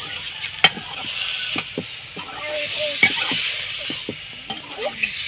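Tomatoes frying in hot mustard oil in a metal kadhai, sizzling steadily, while a steel ladle stirs and scrapes them, clicking against the pan now and then.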